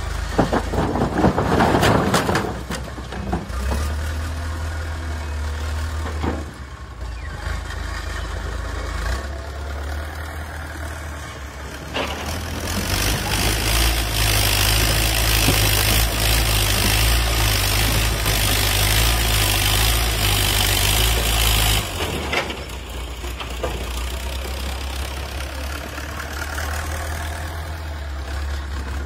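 Backhoe loader's diesel engine running, with a clatter of concrete blocks tumbling from its bucket into a tractor trailer in the first couple of seconds. Around the middle the engine is revved louder for about ten seconds as the machine moves, then it drops back to a steady run.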